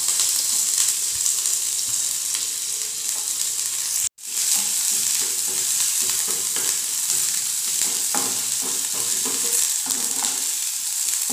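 Chopped onion, green chilli, ginger and garlic sizzling in hot mustard oil in a nonstick frying pan, with a wooden spatula stirring and scraping the pan. The sizzle breaks off for an instant about four seconds in.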